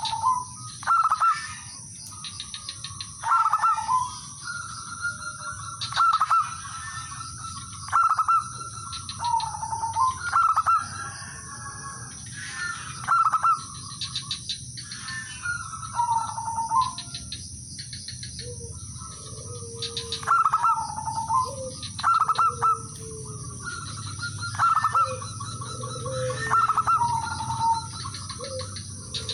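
Male zebra doves (perkutut) calling: short phrases of quick staccato coos repeated every one to two seconds. About two-thirds of the way through, lower-pitched coos join in among them.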